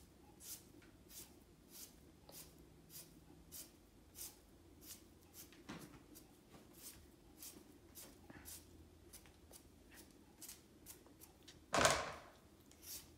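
Hand peeler scraping the skin off a raw potato in short, even strokes, about three every two seconds, with one louder knock near the end.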